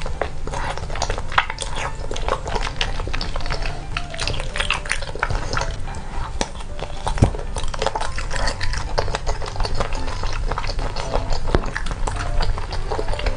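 Close-miked eating: wet chewing, slurping and lip smacks as thick sweet-potato starch noodles and a grilled sausage in thick spicy sauce are eaten, a dense run of sticky mouth clicks with an occasional chopstick tap.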